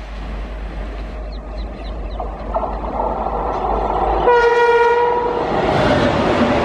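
Indian Railways WAP7 electric locomotive approaching at speed with a whine that grows louder. About four seconds in it sounds one horn blast lasting about a second, then passes close with a loud rush of wheels on rail and clickety-clack.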